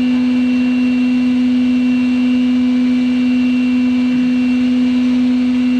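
Lathe running with a loud, steady hum held at one pitch.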